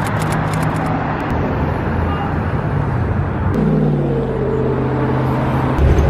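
Road traffic on a busy multi-lane street, cars passing with a steady rush of tyre and engine noise. A steady engine hum joins about halfway through, and near the end the sound changes to a louder low rumble.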